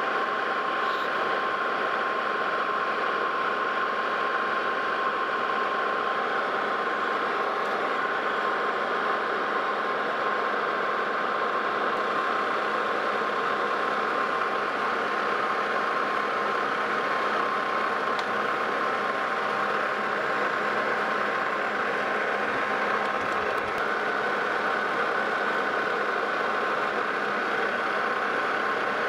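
Metal lathe running under power while a threading tool takes cutting passes on a steel shaft for Acme threads: a steady mechanical hum with a few held tones.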